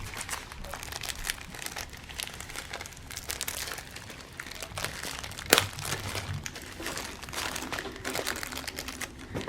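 Crinkling plastic packaging of a diamond painting kit being handled and unwrapped by hand, with one sharp click a little past halfway.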